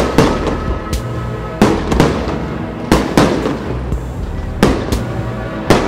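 Fireworks salvo going off in sharp bangs, mostly in pairs about every second and a half, each with a fading tail, over music with sustained tones.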